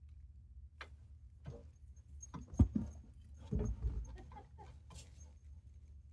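Handling noise from pliers picking at tangled synthetic winch rope wound on the winch drum. Scattered irregular clicks and knocks, the sharpest about two and a half seconds in, then a cluster of dull bumps around three and a half to four seconds.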